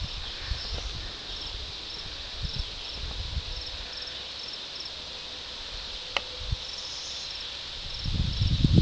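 Insect chirping in a steady rhythm of short, high chirps about twice a second, over faint outdoor hiss. A single sharp click comes about six seconds in, and low rumbling bumps take over near the end.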